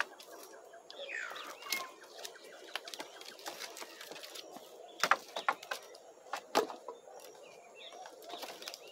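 A few sharp knocks, the loudest about five and six and a half seconds in, with a bird call that slides down in pitch about a second in, over a faint rural background.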